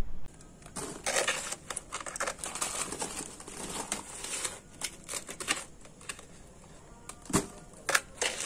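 Small hand trowel digging and scraping soil out of a plastic planter, loosening it to lift the plant out: irregular gritty scrapes and crunches, with two sharp knocks near the end.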